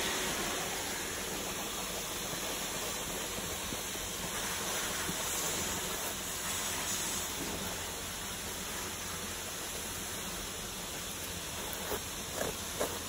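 Black & Decker SteamWorks BD1200 steam cleaner jetting steam onto carpet to soften chewing gum: a steady hiss, with a few small knocks near the end.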